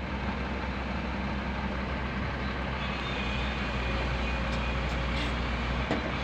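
Diesel engine of heavy earthmoving equipment running steadily at idle-to-working speed, with a short knock near the end.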